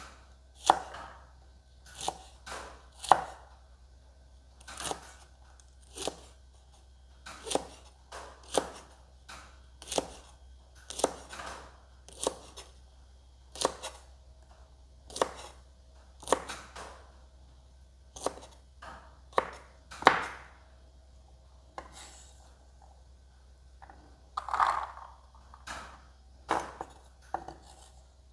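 Kitchen knife chopping long beans into small pieces on a thick round wooden chopping board: separate sharp knocks about once a second, sometimes two close together, with a short pause about three-quarters of the way through.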